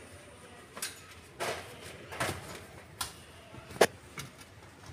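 About five separate knocks and clunks as the removed Audi Q7 front seat is shifted around at the open door, the sharpest knock just before the end.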